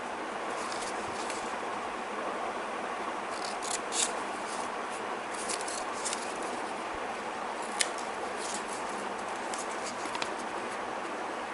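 Scissors cutting through a thick fan-folded stack of paper in a series of separate short snips, the sharpest about four seconds in and again near eight seconds, over a steady hiss.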